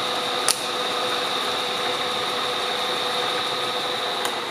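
Bridgeport Series I step-pulley milling head running with the spindle turning, a steady whine over a hiss; the spindle bearings are in excellent condition, running quiet and smooth. A short click sounds about half a second in and another near the end.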